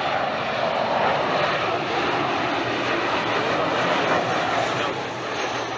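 Airliner engines heard as a loud, steady rushing noise.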